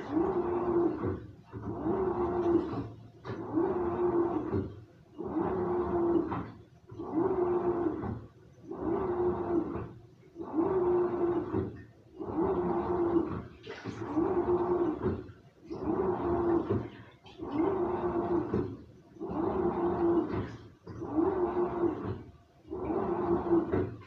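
Samsung washing machine in its wash cycle: the drum turns in short strokes about every 1.7 seconds, each with a steady motor hum and water sloshing, with brief pauses between strokes.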